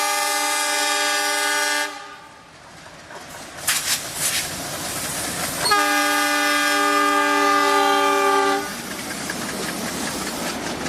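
Indian Railways locomotive air horn: one blast ends about two seconds in and a second blast of about three seconds sounds midway, each a chord of several steady tones. Between and after the blasts comes the train's running noise, with wheels clattering on the rails.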